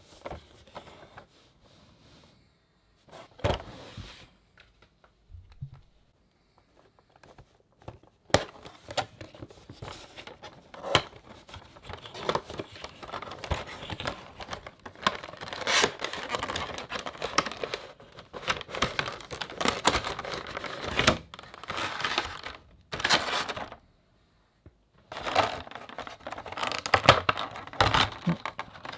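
Handling and unboxing of a cardboard vinyl-figure box: a few scattered knocks and taps, then from about eight seconds in continuous crinkling, rustling and scraping as the clear plastic insert is slid out of the box and pulled off the figure, with a short pause near the end.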